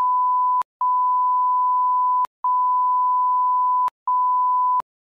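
Censor bleep: a steady, single-pitch beep tone laid over the speech, cut into three beeps of about a second and a half each and a shorter fourth, with brief gaps and a click at each cut, bleeping out swearing in a heated argument. It stops shortly before the end.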